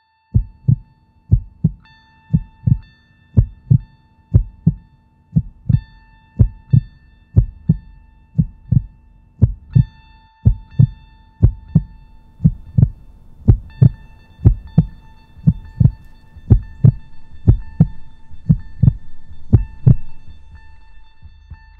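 Heartbeat sound effect: deep double thumps, lub-dub, about once a second, over a steady high electronic tone that drops out now and then. The beats fade away near the end.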